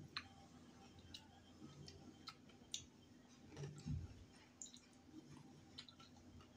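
Faint, scattered mouth clicks and smacks from eating chicken with the hands, with a soft low thump about four seconds in.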